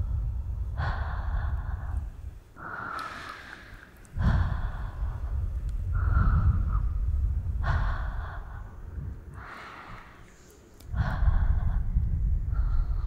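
A woman breathing slowly and heavily close to the microphone, one breath about every second and a half, with a low rumble on several of them.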